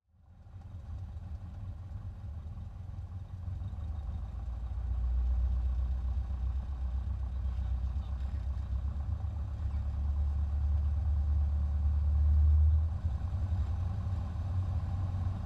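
Bellanca Citabria's air-cooled flat-four engine and propeller running at low power while the plane taxis, heard inside the cabin as a deep steady drone. It swells a few seconds in and eases off slightly near the end.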